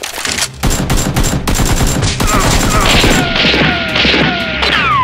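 Rapid bursts of gunfire sound effects, shot after shot in quick succession, dubbed over a Nerf blaster fight, with several falling whistles over the last couple of seconds.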